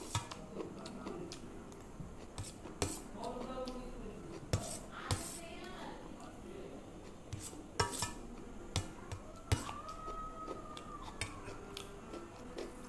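A metal spoon clinking and scraping against a stainless steel bowl while someone eats yogurt, in irregular, scattered clinks.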